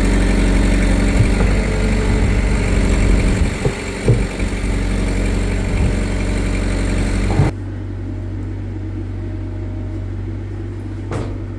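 Skid steer engine running steadily while pulling, with a few knocks partway through. About two thirds of the way in, the sound cuts off abruptly to a quieter steady low hum.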